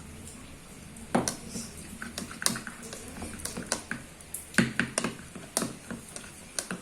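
A spoon knocking and clicking against a container while slime mixture is stirred: a dozen or so irregular light knocks from about a second in.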